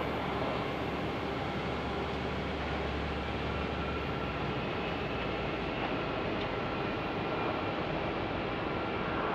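Airbus A320 jet engines running on the runway, heard from a distance as a steady rushing noise with faint steady whining tones.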